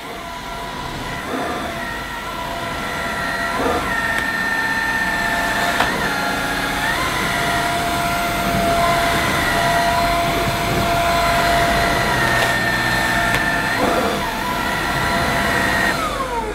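AEG FX9 cordless stick vacuum running on its automatic power setting as it is pushed over deep-pile carpet, its motor whine shifting in pitch now and then. Near the end the motor is switched off and winds down in a falling whine.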